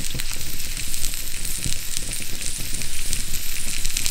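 Pyttipannu of boiled potatoes, sausages and onions sizzling in butter in a pan over a wood fire. A steady hiss runs through it, with a dense patter of fine crackles.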